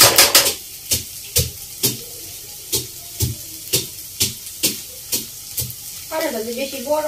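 Steel spatula scraping and knocking against a black kadai about twice a second while an onion mixture is stirred and fried, over a steady sizzle.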